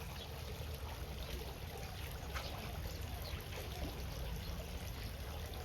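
Steady trickling water of a fish pond, with a faint splash about two and a half seconds in as a fish jumps out of the water.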